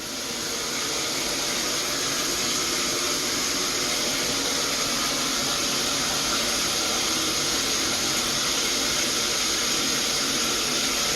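Shower running: water spraying steadily from the shower head into the tub, a loud even hiss that starts abruptly.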